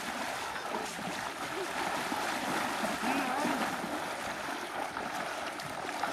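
Steady rush of moving water, an even hiss with no distinct splashes.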